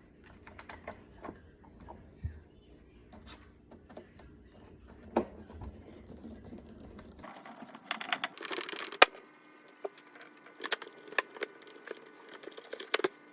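Scattered clicks, taps and rattles of hard plastic parts and small screws and washers being handled as a robotic pool cleaner's wheels are fitted back on, with one sharp knock about nine seconds in.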